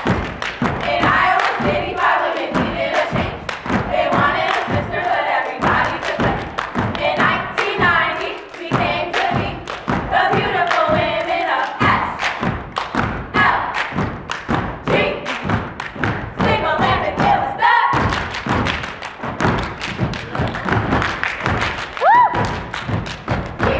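Step team stomping boots on a wooden stage and clapping in a fast, driving rhythm, with the steppers' voices in unison over much of it. A short rising cry comes near the end.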